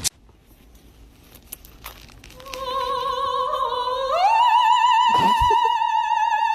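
A long, opera-like sung note with a regular vibrato, starting about two seconds in after faint clicking, stepping up in pitch about four seconds in and then held high; a short thump comes through near the five-second mark.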